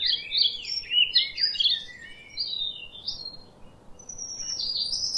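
Birds chirping in quick, high-pitched twittering notes: a dense run of calls through the first three seconds, a short lull, then more chirping starting near the end.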